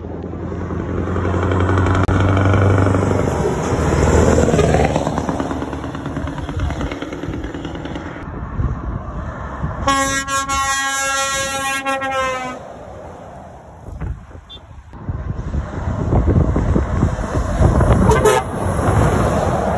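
A lorry's diesel engine pulls past, rising in pitch. About halfway through, a lorry's air horn sounds one long blast of nearly three seconds, dropping slightly in pitch as it ends. More lorry engine noise follows near the end.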